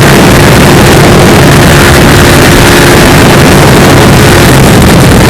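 Yamaha LC135's single-cylinder four-stroke engine, breathing through a Leo Vince Corsa carbon-fibre exhaust, running hard at a steady high speed. Heavy wind buffets the microphone, and the recording is very loud.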